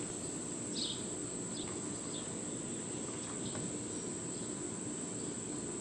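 Steady high-pitched drone of insects in the trees, with a few short bird chirps over it and a faint low hum underneath.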